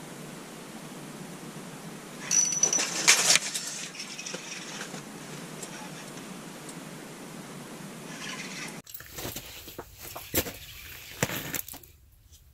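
Fishing rod and reel being handled in an ice shelter as a fish is hooked: a loud rustling swish with a brief high squeak about two seconds in, over a steady hiss. Near the end comes a string of sharp clicks and knocks.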